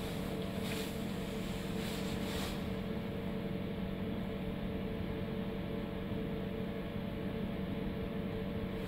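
CNC milling machine humming steadily, with a few constant tones, as its Z axis slowly feeds a drill bit down onto the tool-length setter for an automatic tool-length measurement.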